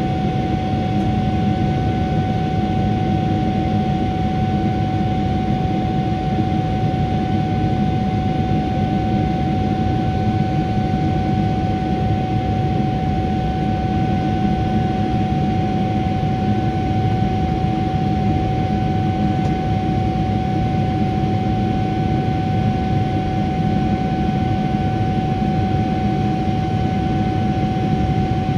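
General Electric GE90-115B turbofan of a Boeing 777-300ER running at climb power, heard inside the cabin beside the engine. It makes a steady, loud rush of air and engine noise with one constant fan tone and a fainter tone an octave above it.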